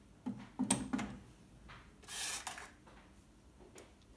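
TEAC V-615 cassette deck's eject mechanism: the button is pressed and the cassette door opens with a quick run of clicks and knocks. About two seconds in, a brief hissy plastic rub as a cassette is handled for loading.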